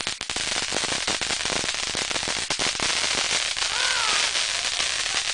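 A string of firecrackers going off in a rapid, irregular run of sharp pops and crackles.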